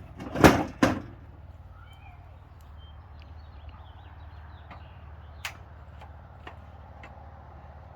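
Two loud knocks or thumps in the first second as the swarm trap box is handled, followed by a few faint scattered clicks and taps.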